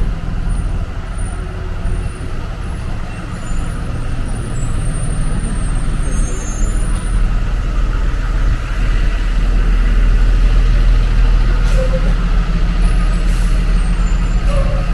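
The engine of a heavy road vehicle, such as a truck or bus, running close by on a city street as a low, steady rumble that grows louder toward the middle and stays loud.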